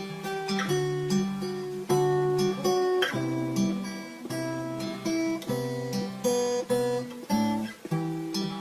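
Music: an acoustic guitar strumming a repeating chord progression with no vocals, the chords changing about once a second.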